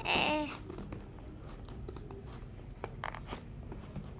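Scissors cutting into packing tape and cardboard on a parcel: scattered small snips, crunches and crackles. A short voice sound comes right at the start.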